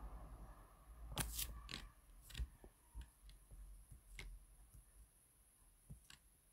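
Faint scattered clicks and ticks as a Beurer upper-arm blood pressure monitor lets the air out of its cuff during a reading, with a low hum fading in the first second or so.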